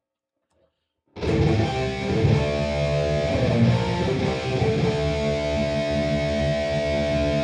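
Electric guitar played through a Boss Katana Gen 3 212 amp, coming in about a second in with strummed chords and then a chord left ringing. The amp's Contour 2 is on with its frequency turned all the way down.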